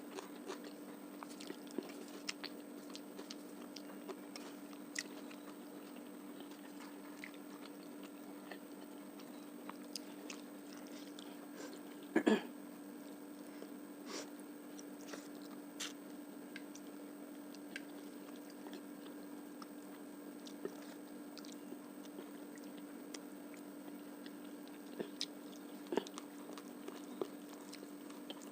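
Close-miked chewing and biting of rice and fish curry, with small wet clicks and occasional crunches, over a steady low hum. One louder sharp smack stands out about twelve seconds in.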